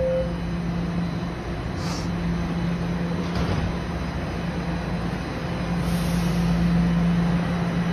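Toronto Rocket subway train standing at the platform with a steady electrical hum and brief hisses of air, growing louder near the end as it begins to pull out.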